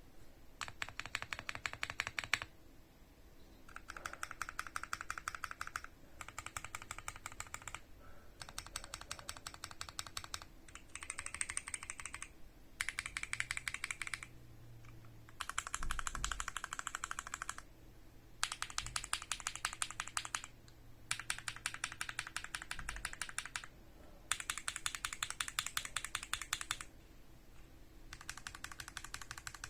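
Typing on a Keychron Q1 aluminium-cased mechanical keyboard: rapid keystrokes in runs of about two seconds, with short pauses between runs.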